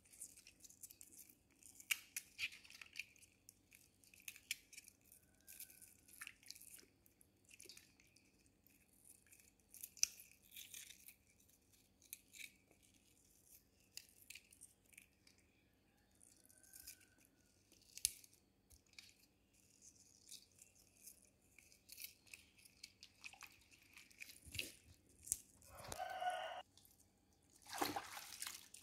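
Raw onion layers being pulled apart and rubbed by hand in a metal basin of water: small crisp crackles, squeaks and light splashes, with a louder swish of the water near the end.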